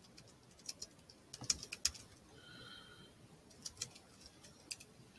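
Typing on a computer keyboard: light key clicks at uneven spacing, in small clusters. A faint brief high tone sounds about halfway through.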